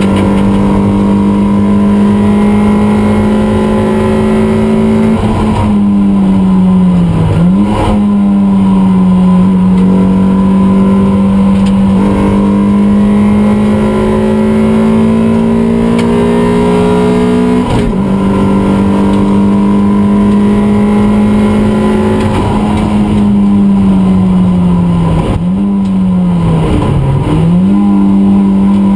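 Toyota MR2 race car heard from inside the cabin at speed on track: the four-cylinder engine running hard at high revs, its note dipping and picking up again at shifts about a quarter of the way in, briefly near the middle, and twice near the end, over road and wind noise.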